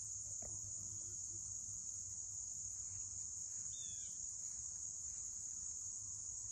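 Steady, high-pitched chorus of field insects, unbroken throughout, with a faint short chirp about four seconds in.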